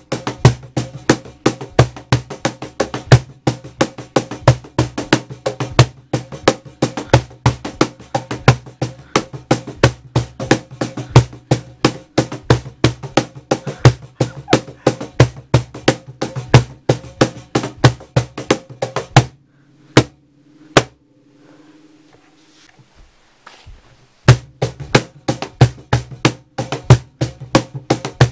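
Instrumental background music with a fast, clicky percussive beat over a steady low tone. The beat drops out for about five seconds two-thirds of the way through, then comes back.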